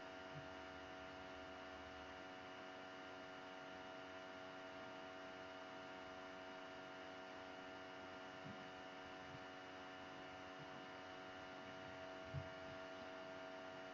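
Faint steady electrical hum made of several steady tones, with a single soft knock near the end.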